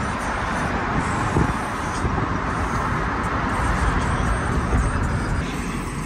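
Road and tyre noise inside a moving car: a steady rushing hiss over a low rumble. It eases slightly near the end as the car slows to park.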